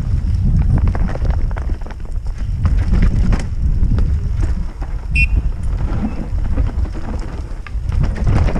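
Wind buffeting a helmet camera's microphone during a fast mountain bike descent on a rough dirt and rock trail, with the knocks and rattle of the bike over roots and rocks. A brief high squeak about five seconds in.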